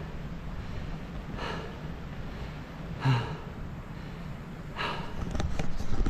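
A walker's heavy breathing, a breath about every second and a half, over a low rumble of wind on the microphone. A few sharp clicks and rustles near the end.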